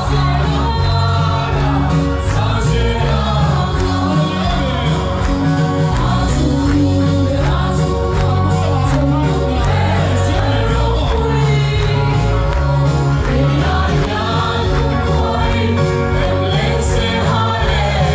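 A large group singing a gospel hymn together over loud accompaniment with a heavy bass, steady throughout.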